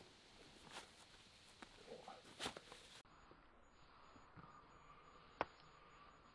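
Faint rustling, scuffing and small clicks of wading boots being pulled on over waders. Then near quiet with a faint steady hum and a single sharp click, as a boot lace is pulled tight.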